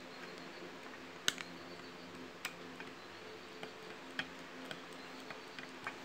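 Scattered sharp clicks of small parts and tools being handled while a wire is moved on a receiver's relay terminals, the loudest about a second in and another near two and a half seconds, over a faint steady hum.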